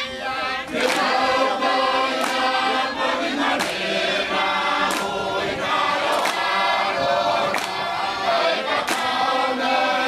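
A choir of voices singing together in harmony, with a sharp beat about every second and a quarter keeping time.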